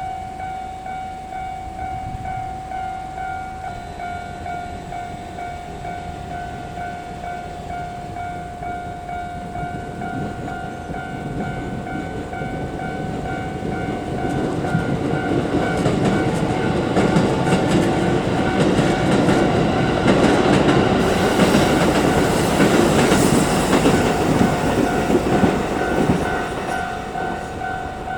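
Japanese level-crossing warning bell ringing in a steady, rapidly repeating electronic tone while a Keikyu train approaches and passes, its wheels clacking over the rail joints. The train noise builds from about a third of the way in, is loudest in the last third and eases off near the end, with the bell still ringing.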